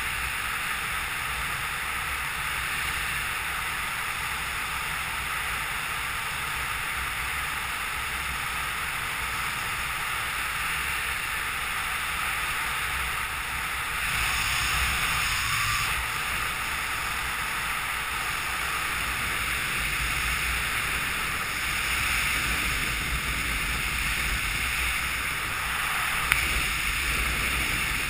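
Steady rush of wind over the microphone of a camera flying fast under a speedriding wing, swelling a little about halfway through, with one brief click near the end.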